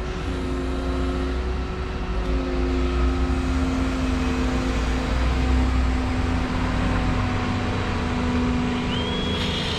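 Volvo 235EL excavator's diesel engine and hydraulics running steadily while working, with a low drone that is heaviest in the first six or seven seconds. A high, thin whine comes in near the end.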